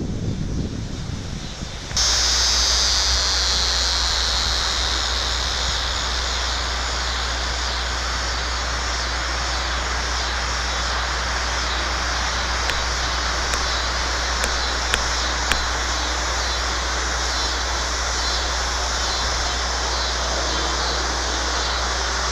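Wind buffeting the microphone, then about two seconds in a sudden cut to a dense, steady chorus of crickets, a high, finely pulsing shrill, over a constant low hum.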